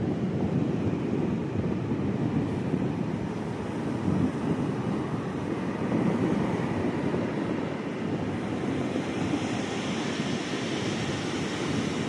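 Pacific surf breaking and washing up the beach, a steady rushing noise, with wind on the microphone. It grows hissier about nine seconds in.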